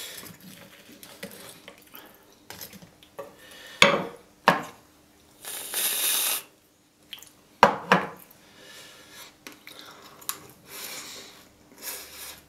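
Metal knife and fork clinking and scraping against a wooden cutting board while cutting through a waffle, with a few sharp clicks. About halfway through, a short hiss of whipped cream sprayed from an aerosol can, lasting about a second.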